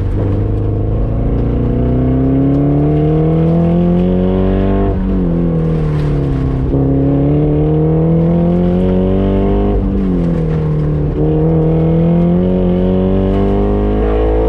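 Car engine pulling hard in an autocross run, its pitch climbing steadily and then falling back sharply about four times as the driver lifts or shifts. The engine is suspected of having a rod bearing going bad.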